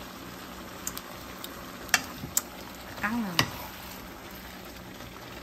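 Shrimp, broccoli and bell peppers sizzling in a frying pan while a wooden spatula stirs them, with a few sharp clicks of the spatula against the pan around the middle.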